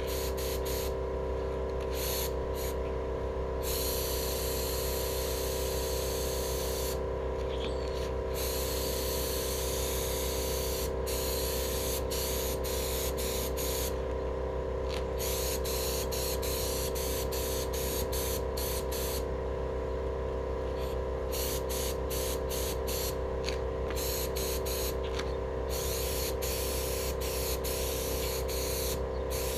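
Gravity-feed HVLP paint spray gun on a compressed-air hose spraying paint onto steel wheels: a hiss of air and paint that starts and stops again and again as the trigger is pulled and released for each pass, over a steady hum.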